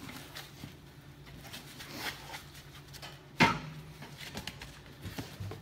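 Handling noises as a foam packing end piece is pulled off a boxed water-filtration unit with hoses attached: light rustles and clicks, and one sharp knock about three and a half seconds in. A faint steady low hum runs underneath.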